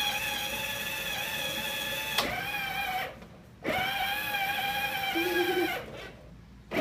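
Electric drive motor and gearbox of a child's battery-powered ride-on toy Jeep whining steadily as it drives. The whine stops for about half a second around three seconds in, spins up again, and cuts off near the end. There is a single click just after two seconds.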